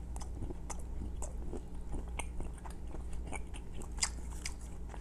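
A person chewing a piece of filled dark chocolate close to the microphone, with many small, irregular mouth clicks over a faint steady hum.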